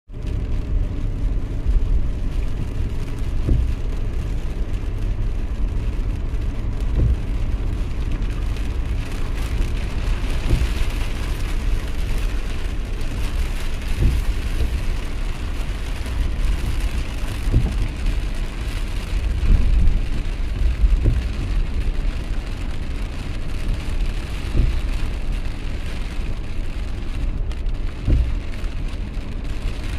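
Steady rain with a heavy low rumble underneath and scattered short thumps.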